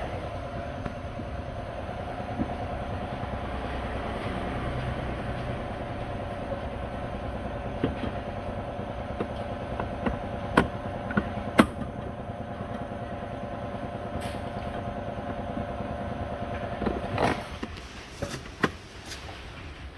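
A machine running with a steady hum, broken by a few sharp clicks or knocks. Near the end the running drops off and it goes quieter.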